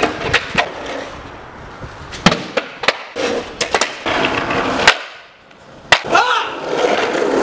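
Skateboard wheels rolling on concrete, broken by a string of sharp clacks as the board pops and hits the ground and ledge during failed trick attempts. A lull comes about five seconds in, then one loud clack.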